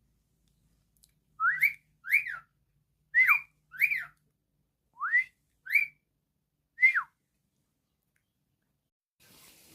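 Pet cockatiel whistling a tune in about seven short, clear notes, each sliding up or up-and-down in pitch.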